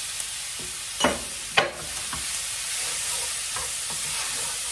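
Diced andouille sausage going into a frying pan of sautéing onions and bell peppers, the pan sizzling steadily while a wooden spoon stirs. Two sharper knocks come about a second and a second and a half in, the second the loudest, then a few lighter taps as the stirring goes on.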